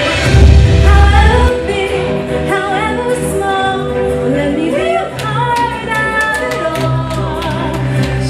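A child singing into a microphone over live band accompaniment.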